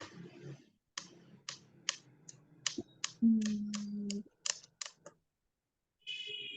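Typing on a computer keyboard: a run of irregular keystroke clicks, a few a second.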